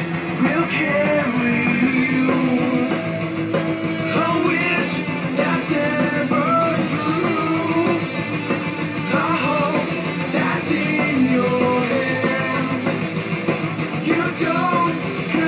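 Stoner-metal rock track playing, with electric guitar and a sung vocal over a full band.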